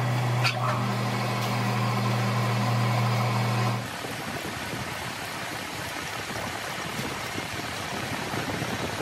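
Pillar drill press running with a steady electric-motor hum as its bit drills into a tractor brake shoe, with a sharp click about half a second in. The hum cuts off suddenly about four seconds in, leaving a quieter, rougher noise.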